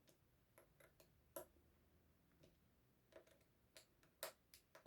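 About a dozen faint, irregular small clicks and ticks as a screwdriver tightens the small screws on the metal lens barrel of a Schneider Kreuznach VP Cinelux projection lens. The sharpest clicks come about a second and a half in and near the end.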